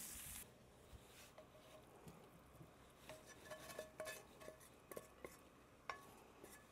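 Faint clinks, scrapes and short ringing taps of a metal frying pan and spatula against a plate as fried Brussels sprouts and bacon are pushed out onto it. The pan's sizzle dies away within the first half second as it comes off the heat.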